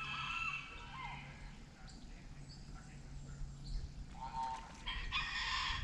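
Short bird calls and faint distant voices over a steady low hum.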